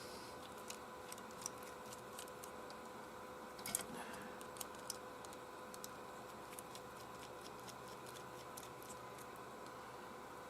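Faint scattered clicks and light taps of small tools on the hairdryer's plastic housing during disassembly, a short cluster of them about four seconds in, over a faint steady hum.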